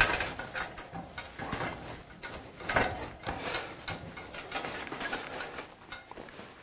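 Tile hoist's metal chassis and ladder mast being shifted by hand on its wheels to tilt it to a slope: irregular knocks and rattles of the metal frame, with the loudest knocks at the very start and about three seconds in.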